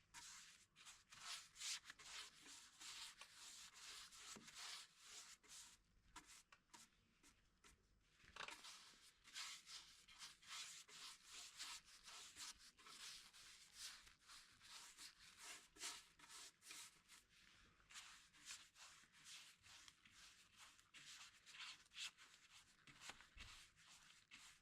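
Faint, quick, irregular rubbing strokes against a surface, with a short pause about a third of the way in.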